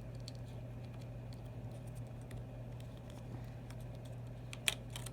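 Faint, scattered light clicks and ticks of small phone parts and tools being handled while an iPhone 6 is put back together, with one sharper click about four and a half seconds in, over a steady low hum.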